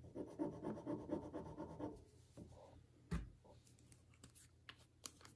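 Rapid back-and-forth scratching and rubbing for about two seconds as a piece of jewelry is handled and tested, then a single thump and a few light clicks near the end.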